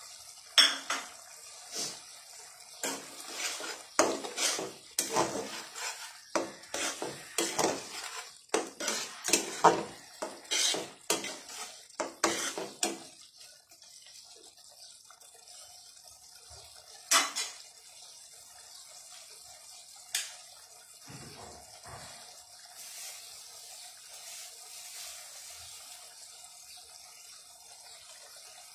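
A spatula stirring curry in a metal pan, scraping and knocking against the sides in quick repeated strokes for about thirteen seconds. After that only a faint steady hiss remains, broken by two single taps.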